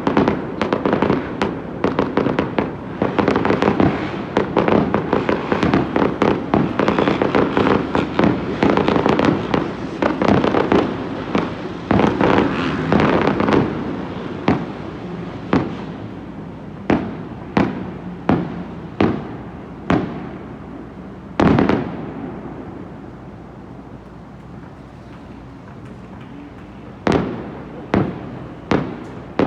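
Fireworks finale: a dense barrage of bangs and crackling for about the first half, thinning out to separate booms with a rumbling tail. The loudest boom comes about two-thirds of the way in, followed by a lull and a few more bangs near the end.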